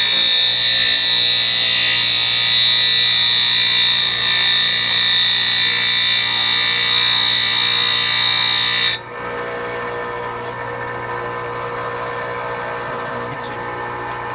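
Grinding wheel cutting the carbide face of a stump grinder tooth spun in a cordless drill: a loud, steady, hissing grind with a high whine. About nine seconds in the tooth comes off the wheel and the grind stops abruptly, leaving the grinder motor humming.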